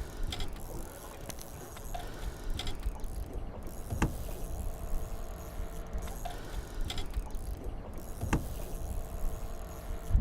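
Low rumbling noise on a small fishing boat with a faint steady hum, broken by two sharp knocks about four seconds apart.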